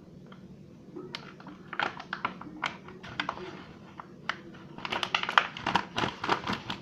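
Kitchen utensils tapping and scraping against a bowl while dough is mixed. The irregular clicks get quicker and busier about five seconds in.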